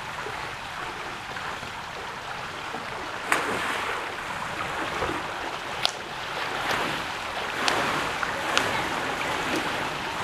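Swimmer splashing through pool water, the arm strokes slapping the surface several times in the second half, over a steady wash of moving water.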